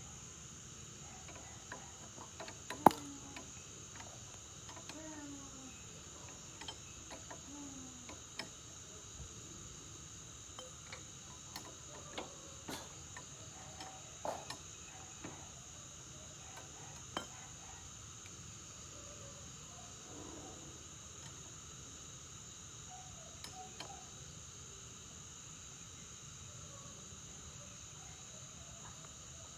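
Steady high-pitched chirring of crickets in the night, with scattered small clicks and metallic clinks of tools on the generator; one sharp, loud click about three seconds in.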